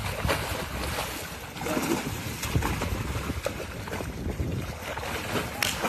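Wind buffeting the microphone under a constant low rumble, with irregular splashing as a hooked fish thrashes at the water's surface beside the boat.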